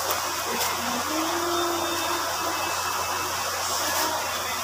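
Steady whooshing noise with a low hum beneath it, like air from a fan.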